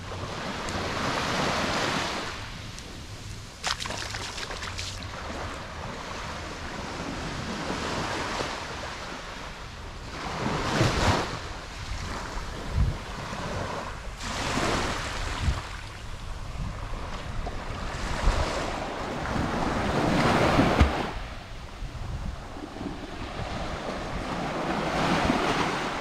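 Small waves breaking and washing up a sandy beach, the surf swelling and fading every few seconds. Wind buffets the microphone with occasional low thumps.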